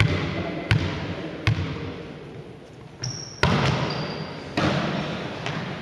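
A volleyball bounced three times on a sports-hall floor at an even pace as the server prepares. About three and a half seconds in the ball is struck hard for the serve, with another hit about a second later. Both hits ring in the hall, and there are short shoe squeaks.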